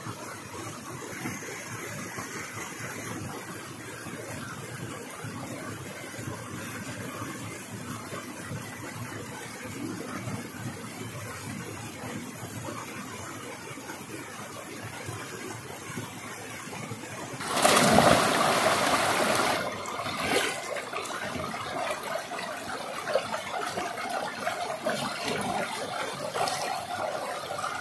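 Steady rushing of a small waterfall and stream. About 17 seconds in comes a loud rush of water lasting about two seconds, then uneven splashing of a person bathing in the pool.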